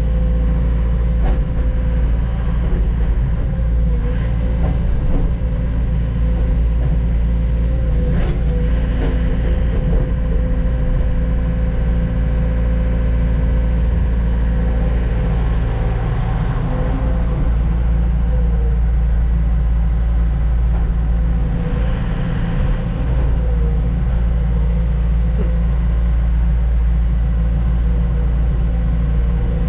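Heavy diesel engine running steadily at an even pitch, with a few light knocks and rattles.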